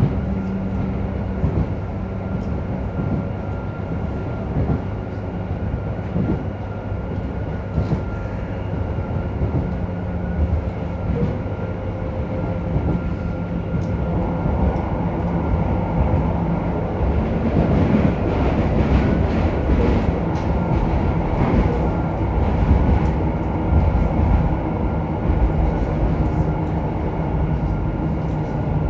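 Running noise inside a JR Hokkaido 731 series electric car, MoHa 731-109, whose traction motor on one bogie gives off an abnormal roar like an old nose-suspended motor. Steady tones ride over a low rumble with scattered wheel clicks, and the noise grows louder and rougher about halfway through, then eases.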